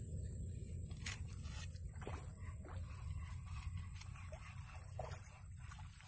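Faint clicks and splashes as a tilapia is hooked and reeled in on a spinning rod and reel, with one sharp click about a second in, over a steady low rumble.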